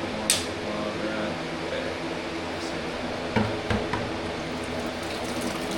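A sharp click, then two knocks about three and a half seconds in, from tools or parts being handled, over a steady hum.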